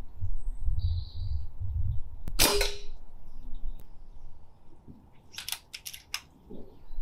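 Brocock Sahara XR precharged pneumatic air rifle fired once with its silencer fitted: one short, sharp report about two and a half seconds in. A few quick clicks follow near the end. Wind buffets the microphone in the first two seconds.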